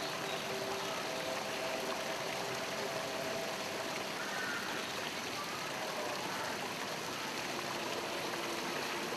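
Steady rush of running water, like a stream or waterfall, that does not let up.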